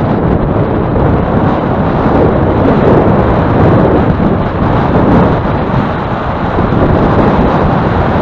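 Wind buffeting a riding cyclist's camera microphone: a loud, steady rumble, strongest at low pitches.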